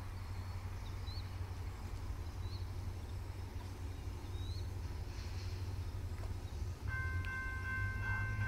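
Railroad grade-crossing warning bell starts ringing about seven seconds in, a steady high ringing as the crossing activates for an approaching train. Underneath runs a low steady rumble.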